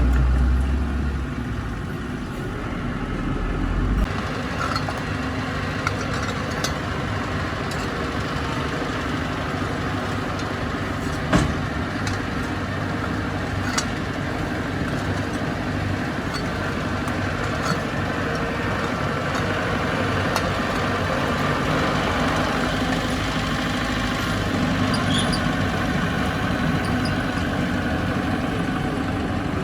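Heavy diesel engine of earthmoving machinery running steadily, with a few short metallic knocks and clanks, the sharpest about eleven seconds in.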